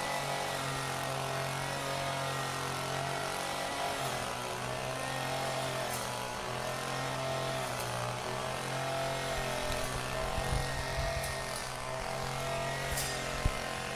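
Construction-site machinery engine running with a steady drone, broken by a few scattered clicks and one sharp knock near the end.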